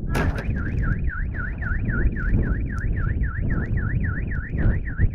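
Car alarm warbling, a siren tone sweeping up and down about four times a second. It starts just after a sharp crack and sounds over a loud low rumble.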